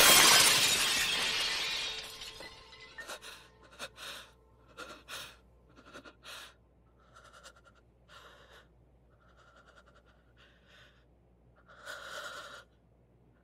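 A loud crash like shattering glass at the start, fading away over about two seconds. It is followed by short, ragged gasping breaths, one or two a second at first and then sparser, with a longer gasp near the end.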